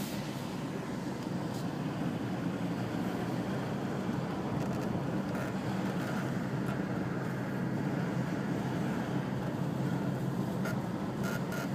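Steady road and engine noise of a car being driven, heard from inside the car, with a few faint clicks near the end.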